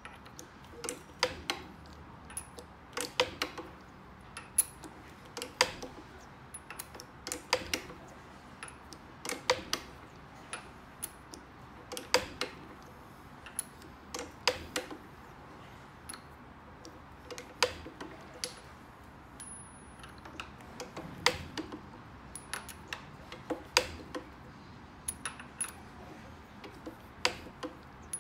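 Steel pin clicking against the steel die block of an HM HEN handmade-pellet mould as it is pushed into the pellet holes one after another. Irregular sharp metallic clicks, often in quick pairs, about one every second or so.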